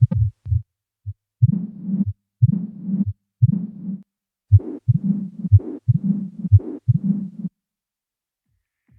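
Stethoscope recording of heartbeats at about one a second: the first beats are sharp thumps, then each beat is followed by a low rumbling murmur, the mid-diastolic rumble of mitral stenosis. It stops about seven and a half seconds in.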